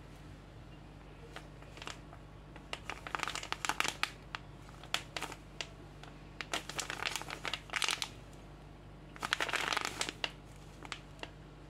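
A plastic packet of semolina crinkling in several bursts as hands grip, squeeze and turn it.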